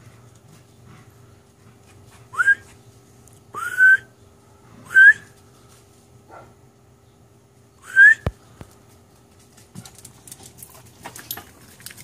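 Dog giving short, high-pitched yelps that rise in pitch, four of them one to three seconds apart, excited by squirrels it is chasing. A sharp click follows the last yelp, and light handling clatter comes near the end.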